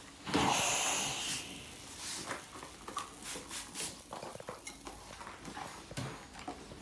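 Ironing clothes: a hiss about a second long near the start, then fabric rustling and light knocks of the iron against the cloth and ironing board.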